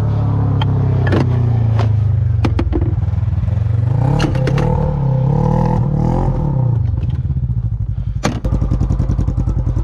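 Polaris Indy XLT 600 triple snowmobile's three-cylinder two-stroke engine running with the hood open. It is revved up and back down twice, with a few clanks; the owner believes it has lost a cylinder to a stuck carburetor float. About eight seconds in comes a sharp knock, then a different engine idling with a steady, even pulse.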